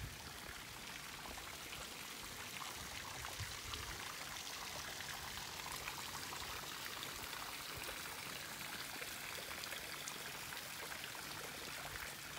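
Steady splashing of running water.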